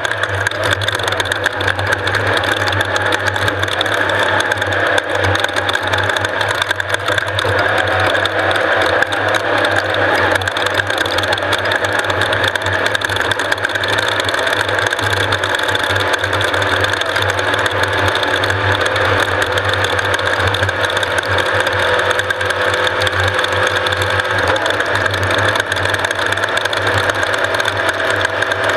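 Off-road race vehicle's engine running steadily, with a dense, fast rattle over it.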